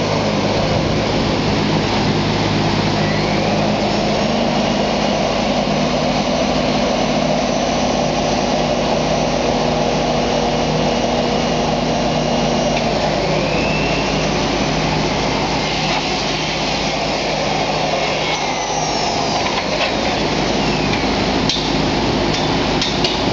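Wide industrial sheeter and cutter running: a steady motor drone with a hum that stops about 13 seconds in, a short rising whine just after, and a few light clicks near the end, as the roll feeds sheet material across the table.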